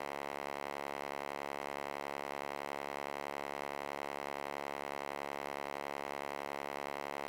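A steady electronic drone of many tones held together, unchanging in pitch and level.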